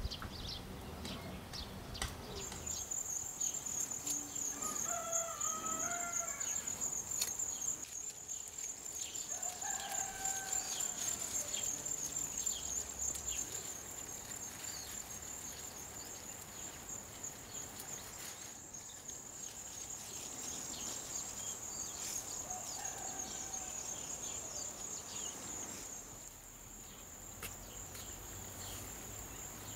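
A rooster crows three times, about five, ten and twenty-three seconds in, over a steady high-pitched insect buzz that starts about two seconds in, with light rustling of garden plants.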